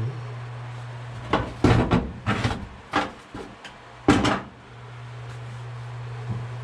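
A run of knocks and clatters, loudest about a second and a half to two and a half seconds in and again just past four seconds, as things are moved about in a search for a missing screw. A steady low hum runs underneath.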